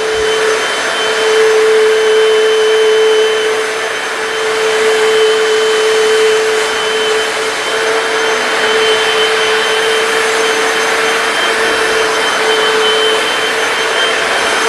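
Hoover PowerDash hard floor cleaner running steadily, its motor giving a constant whine with a strong steady hum, while its spinning brush roll scrubs a stain in a tile grout line.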